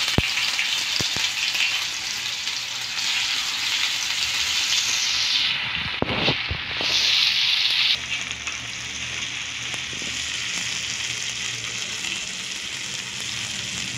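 Ginger-garlic paste sizzling in hot oil on an iron tava, louder for the first eight seconds or so and then settling to a steadier, quieter sizzle. A few taps and scrapes of a spoon and then a metal spatula on the pan come through, near the start and again about six seconds in.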